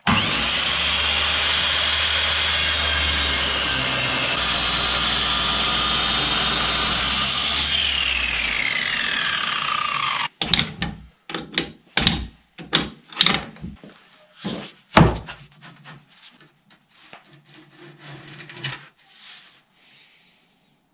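Metabo sliding mitre saw running and cutting the edge off a charred wooden plank, then its blade spinning down with a steadily falling whine before the sound stops abruptly. After that, scattered knocks and clatter of wood and tools being handled.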